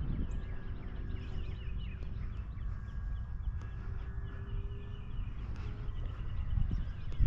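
Several small birds singing in quick, repeated chirps over a steady low rumble of wind on the microphone.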